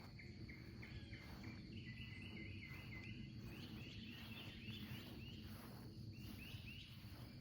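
Faint rural outdoor ambience: a steady high insect drone, with a bird calling in a run of short repeated notes through the middle, over a low rumble.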